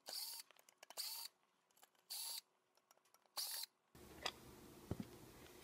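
A screwdriver turning out small screws from an aluminium light-box casing: four short, faint, hissy scrapes about a second apart, with light ticks in between, then a couple of small clicks near the end.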